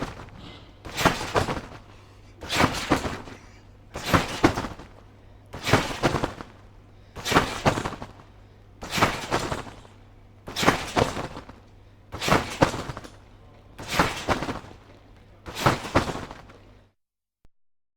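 Someone bouncing on a trampoline: the mat and springs are hit in a steady rhythm about every second and a half, around ten bounces, and then they stop near the end.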